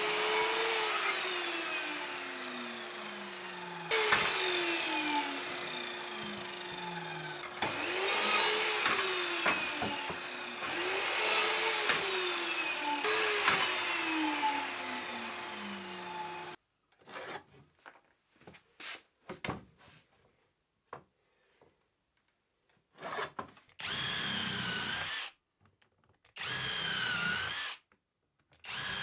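Power tools working wood. A motor is started several times and each time left to spin down with a falling whine. After a sudden drop come short choppy sounds, then three short runs of a smaller tool whose whine rises and falls.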